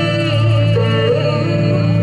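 Carnatic vocal music: singing with ornamented, sliding pitch over a steady low drone.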